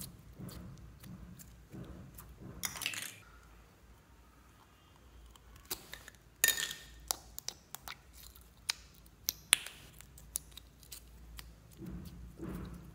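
Hands squeezing and poking clear jelly slime, making soft squelches and many sharp sticky clicks and pops, busiest in the middle of the stretch. A small plastic slime tub is handled partway through.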